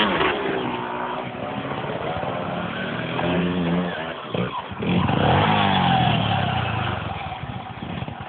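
Honda MTX125 two-stroke single-cylinder trail bike revving as it is ridden along a dirt track, its engine pitch rising and falling again and again. It is loudest at the start, dips briefly about four seconds in, then revs hard again before fading toward the end.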